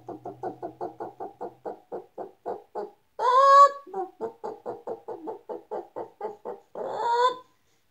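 A person imitating a chicken with their voice: quick clucks, about five a second, broken twice by a louder rising squawk, once near the middle and once near the end.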